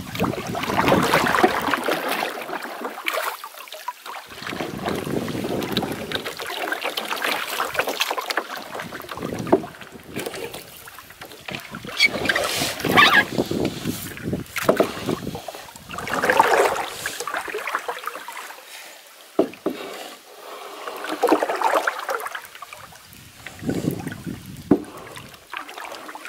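Wooden canoe paddle stroking through lake water, with a swell of splashing and dripping at each stroke every few seconds.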